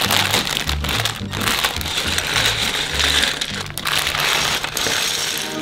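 Clear plastic LEGO parts bags crinkling and crackling as hands grip and open them, a dense run of small crackles. Background music with a low bass line plays underneath.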